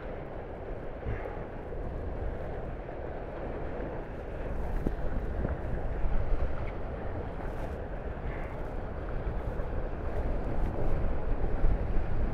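Wind buffeting the microphone and water rushing past the hulls of a Tornado racing catamaran under sail, with a few faint ticks from the boat's fittings.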